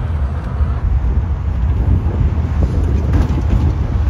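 Steady low rumble of a tram running, with wind buffeting the microphone.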